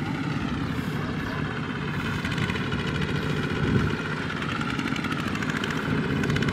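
Several Kubota two-wheel tractors with single-cylinder diesel engines running together as they tow trailers loaded with rice sacks, giving a steady, dense engine noise.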